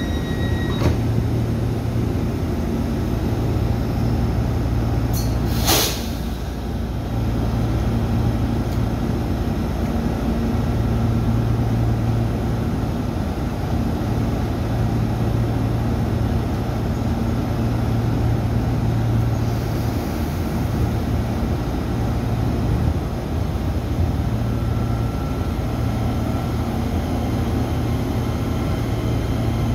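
Taiwan Railway EMU3000 electric train departing: a click just under a second in, a sharp hiss of air about six seconds in as the brakes release, then the steady low hum of its Hitachi SiC-VVVF traction drive and motors as it pulls slowly away.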